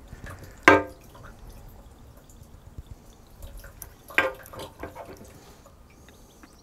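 Petrol dripping and trickling from a disconnected fuel filter and pipe back into a motorcycle's fuel tank through the filler opening. Two short vocal-like sounds stand out, one near the start and one about four seconds in.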